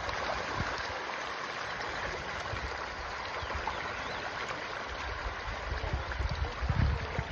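A dense shoal of farmed fish splashing and churning at a pond's surface as they feed on pellet feed: a steady rush of water, with a few low thumps near the end.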